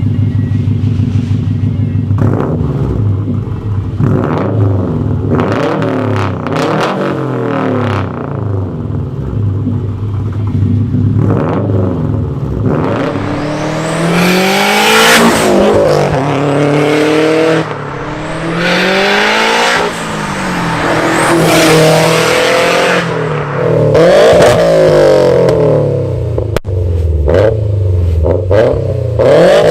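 Subaru Impreza WRX STI's turbocharged flat-four boxer engine, first idling, then revved over and over, its pitch climbing and falling back each time. From about halfway the revs go higher and louder.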